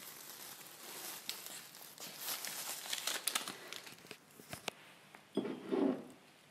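Handling noise on a phone's microphone: clothing and hands rustling and crinkling against it, with scattered small clicks, and a louder muffled rub near the end.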